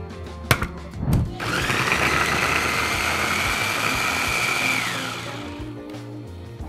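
Electric mini food chopper running for about three and a half seconds as it purees pineapple chunks: a steady motor whine that rises slightly, then winds down and fades. Just before it starts, a click and a knock as the jar lid and the motor head are set on.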